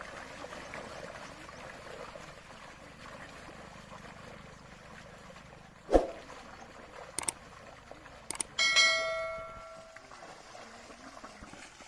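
A sharp knock, a few clicks, then a metal bell rings once and fades over about a second and a half, over a steady faint hiss.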